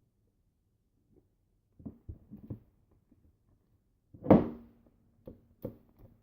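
Light knocks and clatter from handling the slime container and utensils on a table, with one loud thump about four seconds in.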